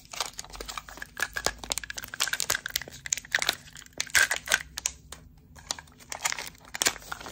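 Holographic plastic film wrapping crinkling in an irregular run of crackles as it is handled and pulled open by hand.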